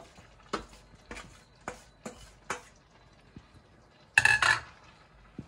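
A kitchen utensil knocking against a cooking pan four times as cooked pasta is tipped into cream sauce, then a louder, ringing metal clatter about four seconds in.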